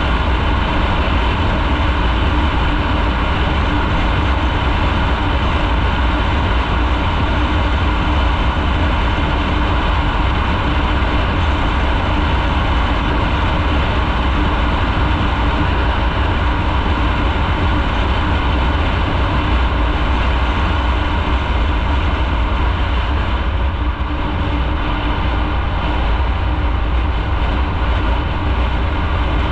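Riding a motorcycle at a steady pace: the engine runs evenly under a loud, steady rush of wind and road noise on the bike-mounted microphone, with a deep rumble beneath. The upper hiss eases slightly about three-quarters of the way through.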